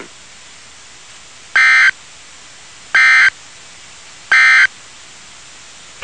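Emergency Alert System end-of-message (EOM) code sent over NOAA Weather Radio: three short, buzzy digital data bursts about 1.4 seconds apart, marking the end of the warning. Steady radio hiss runs between the bursts.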